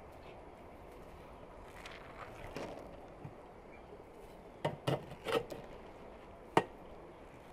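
Kitchen knife scraping and knocking while cutting through a baked pumpkin stuffed with rice pilaf. There are a few soft scrapes, then a quick run of sharp knocks and clinks about two-thirds through, and one louder knock near the end.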